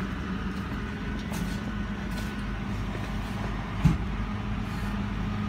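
Flatbed tow truck's engine running with a steady hum while its hydraulics tilt the bed loaded with a stripped pickup body; a single sharp knock about four seconds in.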